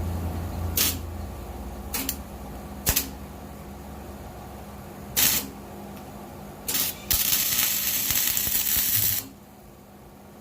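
Arc welding on a steel exhaust hanger: a few short tack welds, each a brief burst of crackle, then a steady crackling bead of about two seconds near the end.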